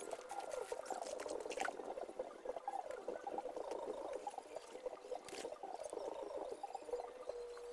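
Dry stalks and brush crackling and snapping as they are pulled up and trampled, with a few sharper snaps, over a continuous busy chatter of small animal calls.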